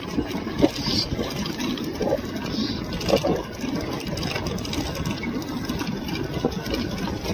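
Steady wind and road noise from riding on an electric scooter, rushing over the phone's microphone.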